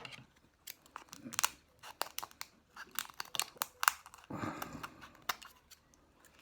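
Butter knife prying and scraping at a preserved oyster's shell to force it open: a run of sharp, irregular clicks and crunches of metal on shell.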